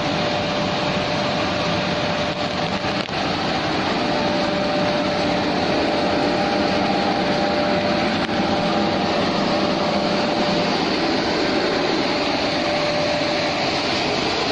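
Horizontal glass washing machine running: a steady, even machine noise with a constant whining tone through it, and a couple of faint knocks between about two and three seconds in.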